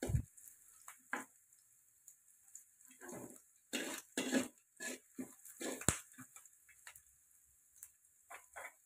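A metal spatula scraping and knocking against a wok while it stirs onion, shallot and garlic being sautéed, in short irregular strokes with pauses between them.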